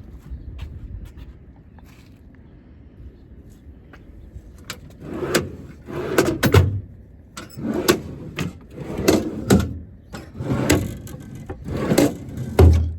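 Metal service-body drawers and compartment doors being worked by hand: a run of knocks, rattles and heavier clattering bangs that starts about four seconds in and grows louder toward the end.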